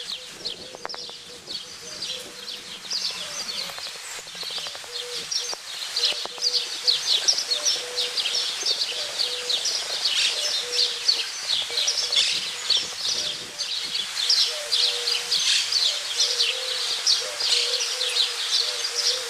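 Chorus of many small birds chirping, short high chirps overlapping thickly and growing busier a few seconds in, over a faint steady hum.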